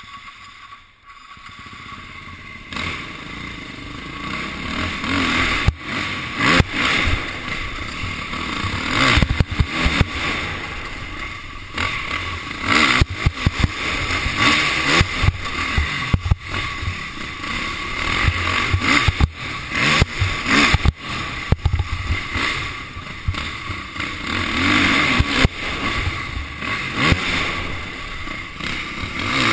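Motocross bike engine revving up and down through the turns and straights of a dirt track, heard from a helmet-mounted camera. It is faint at first and gets loud about two seconds in, with frequent sharp knocks on the microphone.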